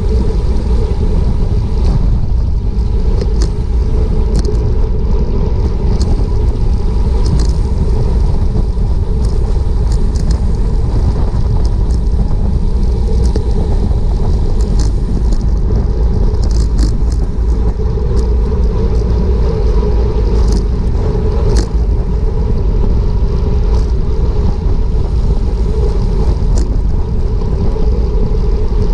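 Steady rumbling wind and road noise on a bicycle-mounted action camera's microphone at racing speed, about 27 mph, with scattered faint ticks throughout.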